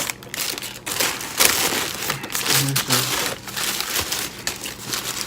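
Paper fast-food wrapper and bag crinkling in irregular bursts as they are handled, with two short low vocal sounds from a man about halfway through.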